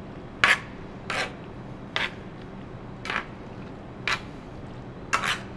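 Metal spoon stirring pasta through a thick cheese sauce in a cast-iron skillet, scraping the pan about six times, roughly once a second.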